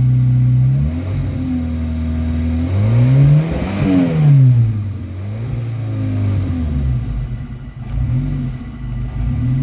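Turbocharged car engine running steadily, then revved up and back down once about three seconds in, with a rush of hiss at the top of the rev; smaller rises and falls in engine pitch follow.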